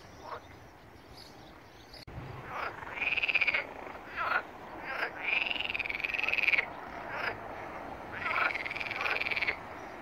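Frogs croaking their breeding calls, starting about two seconds in: three long rattling croaks of a second or so each, with shorter croaks between them.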